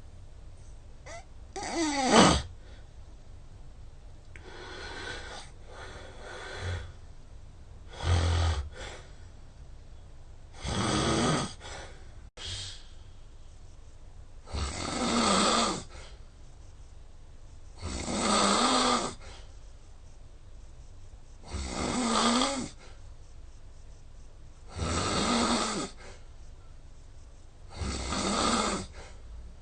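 A person snoring loudly in deep sleep, one snore about every three to three and a half seconds, each lasting about a second. The first, about two seconds in, is the loudest and falls in pitch. This is heavy, habitual snoring that the SnoreLab app scores in the top 15% of snorers.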